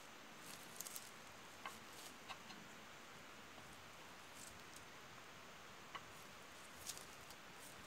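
Near silence: a faint steady hiss with a handful of faint, scattered ticks and taps.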